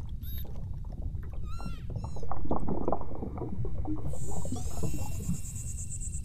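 Beluga whales calling: chirping whistles that bend up and down in the first two seconds, then a louder stretch of rapid clicking and creaking, then from about four seconds in a high, buzzing pulsed call. All of it sits over a constant low water rumble.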